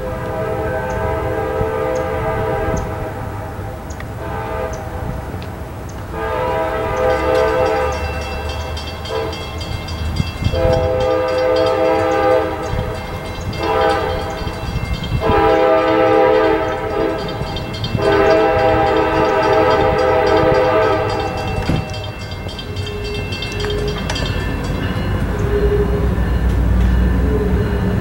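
Multi-note air horn of an approaching CSX manifest freight led by a GP40-2 diesel locomotive, sounding a string of long blasts with one short one, in the pattern of a grade-crossing signal. After the horn stops, a little past two-thirds through, the locomotive's low rumble grows louder.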